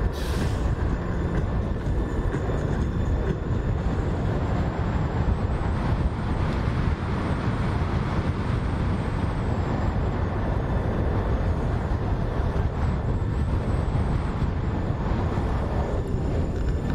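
Steady low rumble of a moving vehicle: road and engine noise while driving.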